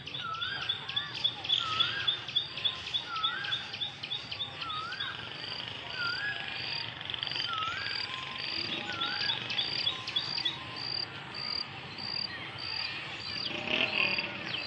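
Crickets chirping: a high pulse about twice a second, with runs of fast high ticking. A bird repeats a short rising whistle about once a second through the first half.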